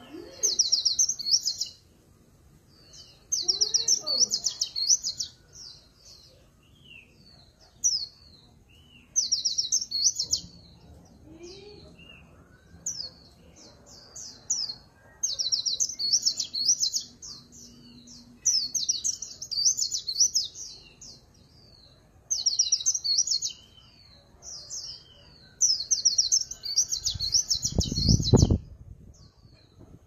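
Caged white-eye singing in the 'líu pha chòe' style, a rapid high twittering warble with phrases borrowed from the magpie-robin, given in bursts of a second or two every couple of seconds. A low thump sounds briefly near the end.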